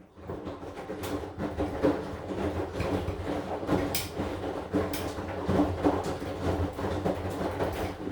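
AQUA AQW-DX12M drum washing machine in its wash phase: the drum turns for about eight seconds, tumbling wet laundry with sloshing and irregular soft knocks over a steady motor hum.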